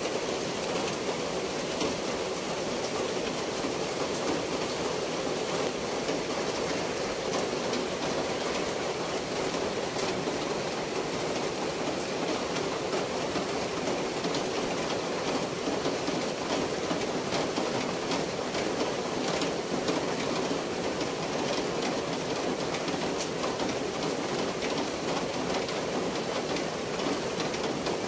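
Steady rush of water, even throughout, with a fine patter of small splashes on top.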